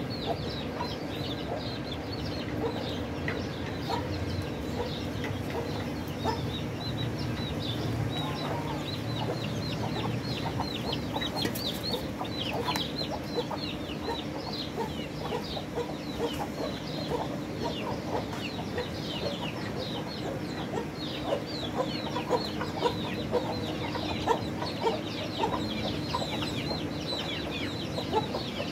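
Chickens clucking among a dense run of short, high, falling chirps, with a steady low hum underneath.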